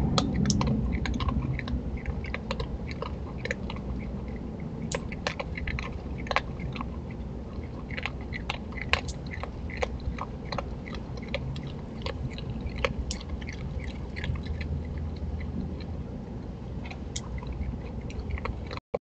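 Virginia opossum chewing dry food from a dish close to the microphone, with irregular crunches.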